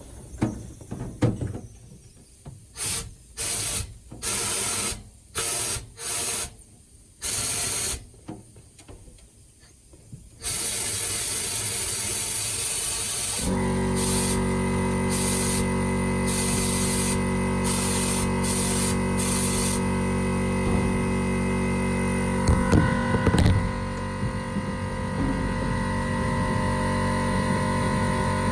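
Compressed air hissing out of a sandblasting cabinet's blast gun in short bursts as the trigger is pulled again and again with no media loaded, then in one longer blast. About halfway, the air compressor's motor cuts in to recharge the tank and runs steadily under a few more short bursts of air.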